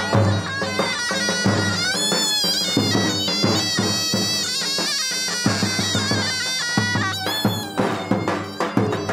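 Kurdish line-dance music: a reedy, ornamented melody wavers and trills over a repeating drum beat.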